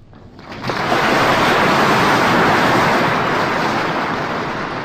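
Audience applauding, swelling up within the first second and then holding steady, easing slightly near the end, on an old 1940s recording.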